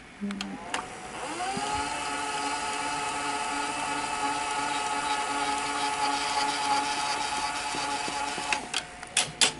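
Sony SL-100 Betamax VCR rewinding a tape. After a couple of clicks, the reel motor spins up over about a second to a steady whine, and several sharp mechanism clicks come near the end. The rewind works again now that the leaking capacitors on the system control board have been replaced.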